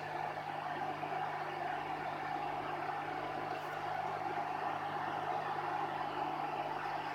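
Microwave oven running: a steady hum with fan noise, unchanging throughout.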